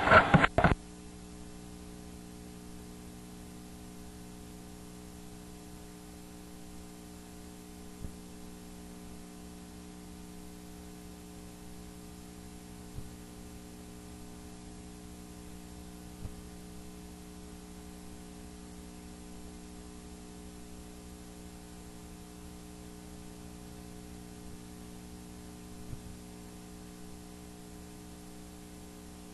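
Steady electrical mains hum, with four faint clicks spread through it.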